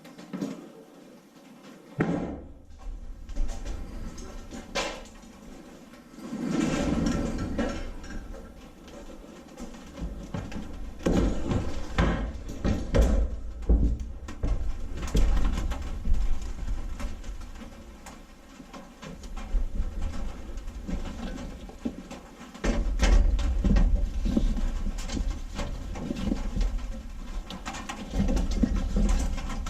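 Irregular knocks, clicks and rustling with stretches of low rumble: handling noise while work goes on, with no steady machine sound.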